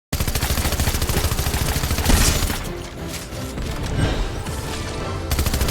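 Loud music with a fast, dense beat starts abruptly out of silence. Its high end drops away for a couple of seconds midway, then the full beat comes back.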